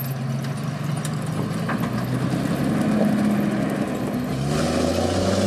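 A 1965 fire truck's big gasoline engine running under way in low gear, slowly growing louder as the truck drives past. About four and a half seconds in, a hiss of chained tyres churning snow joins it.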